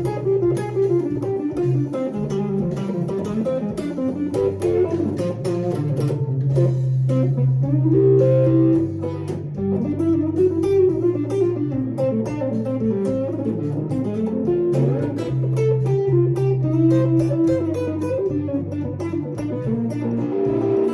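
Electric guitar playing an improvised lead line mixing Mixolydian and blues phrasing over a backing with a steady bass line.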